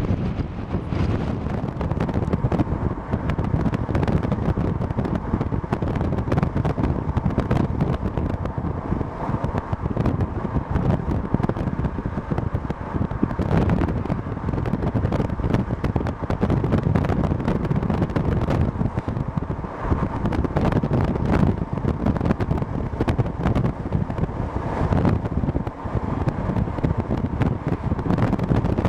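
Freight train rolling past, its cars giving a steady noise heard through heavy wind buffeting on the microphone.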